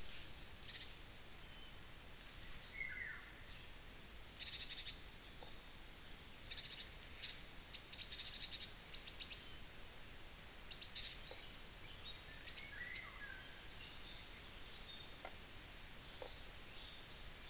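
Small woodland songbirds chirping and trilling in short high-pitched phrases, most busily in the middle few seconds, over a steady faint hiss. The crane itself is not calling.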